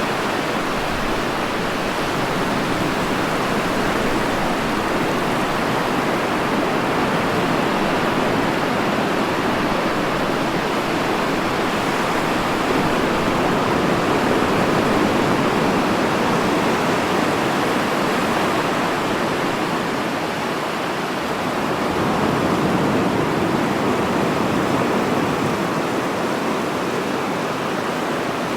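Continuous rush of sea surf washing on a shore, steady with slow, gentle swells in loudness.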